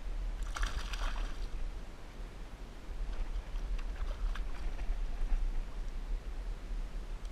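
Low rumble of wind buffeting the microphone aboard a small fishing boat, with water sounds. A short splash-like rush comes from about half a second to a second in, and faint crackles follow a few seconds later.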